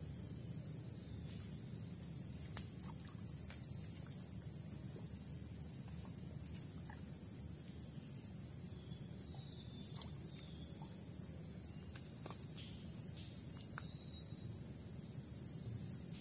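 Steady high-pitched insect chorus that holds unbroken, over a low rumble, with a few faint scattered ticks.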